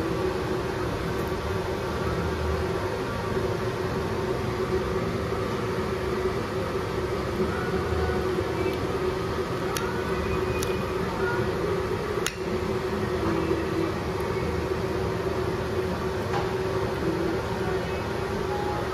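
A metal spoon and fork clink against a ceramic plate a few times, about ten to twelve seconds in, over a steady background hum.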